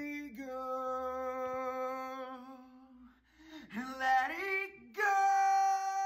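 A man singing alone without accompaniment: a long held note, then a slide up into a louder, higher held note about five seconds in.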